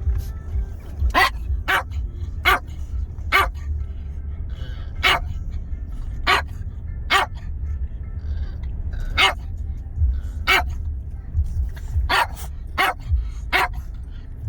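A dog barking in single sharp barks, about a dozen at uneven gaps, over a steady low rumble.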